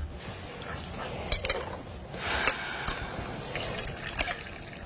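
A drink poured from a stainless-steel vacuum flask into a small glass, with sharp clinks of cutlery and dishes at the table.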